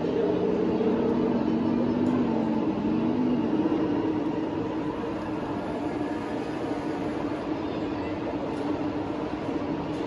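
Steady low mechanical drone from a remote-control model bridge-laying tank, with a brief wavering tone two to three seconds in, over background crowd chatter.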